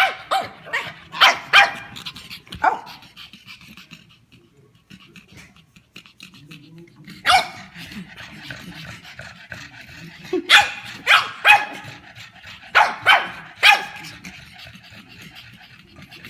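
A pug barking in short, sharp barks that come in scattered bunches, with a pause of a few seconds in the middle.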